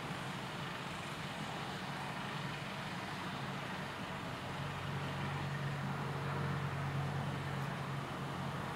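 Small diesel-outline miniature railway locomotive running along the track, its motor giving a steady low hum over a rumble. The hum grows louder about halfway through as it draws nearer.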